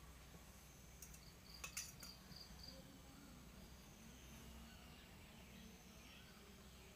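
Near silence: faint room tone with a low hum, broken about two seconds in by a short run of faint high ticks.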